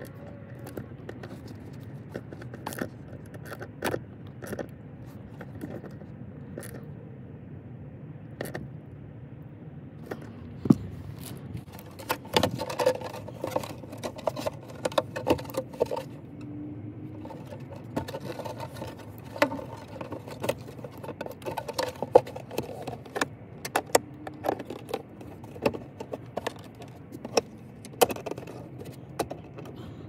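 Metal seat belt hardware jangling and clinking, with clicks, knocks and scrapes from the plastic pillar trim being handled and fitted. The clicks are sparse at first and come thick and fast from about ten seconds in, over a low steady hum.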